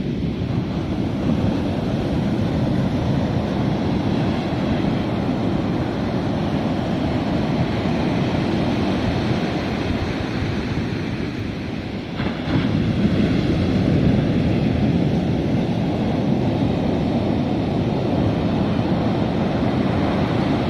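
Ocean surf breaking on a beach, a continuous rushing rumble that swells louder about twelve seconds in.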